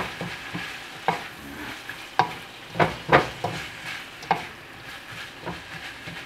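Shredded roast chicken sizzling with onion and garlic in a hot metal pan, stirred with a wooden spatula that scrapes and knocks against the pan in irregular strokes.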